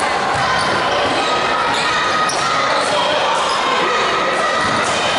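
Basketball game in a gym: a ball bouncing on the court amid a steady murmur of crowd voices.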